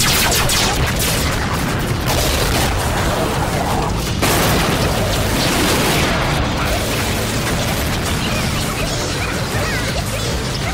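Cartoon battle sound effects over action music: laser-gun blasts and explosions in a dense, continuous mix, with a sudden louder hit about four seconds in.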